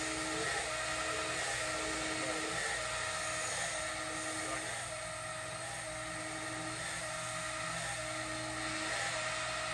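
HARIG Bridgeport EZ-Surf 618 CNC surface grinder running through its automatic grinding cycle. There is a steady hiss and low hum, and a motor tone that starts and stops every couple of seconds as the table traverses back and forth.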